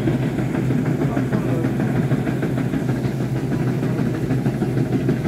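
Rice combine harvester's engine running with a steady, even drone.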